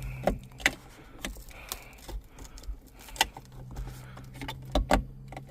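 Plastic interior trim clicking, knocking and rattling as the overhead trim piece at the headliner is pulled loose from its clips, in sharp irregular clicks with two louder knocks near the end, over a low steady hum.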